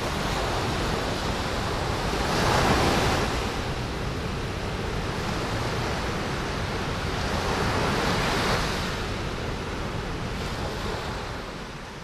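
Small sea waves breaking and washing up on a sandy beach, with a steady wash of surf that swells three times as waves come in, fading out near the end.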